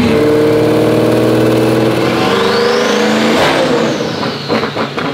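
Twin-turbo C8 Corvette's V8 at full throttle on a chassis dyno during a boosted pull, with a high whine climbing steadily. About three and a half seconds in the throttle closes and the whine falls away as the engine and rollers wind down.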